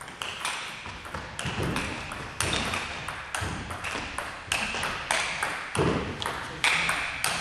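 Table tennis ball clicking back and forth off the bats and the table in a long rally, a sharp tap about every third of a second, with one heavier thud about two-thirds of the way through.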